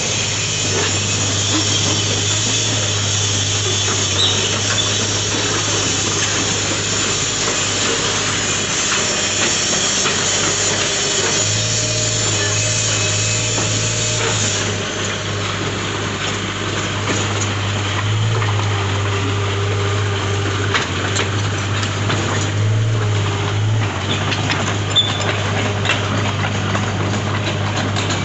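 Komatsu PC40UU mini excavator's diesel engine running steadily, with scattered short knocks from the machine as it works.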